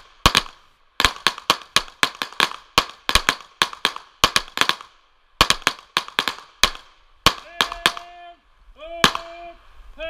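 Rapid pistol fire from several shooters at once: sharp, uneven shots, about three or four a second and sometimes overlapping, for around seven seconds, then thinning out to a few last shots. Near the end come three short pitched tones.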